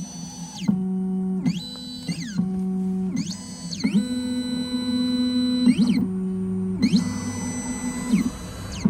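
Stepper motors of a Triton Plus key machine whining through its automatic calibration: a run of steady pitched tones, each held for a moment, with quick rising and falling pitch sweeps as the carriage speeds up and slows down between moves.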